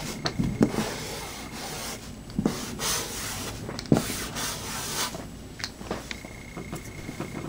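Joystick Tuff paint marker's tip rubbing across a whiteboard in a series of strokes of uneven length, with a few light knocks.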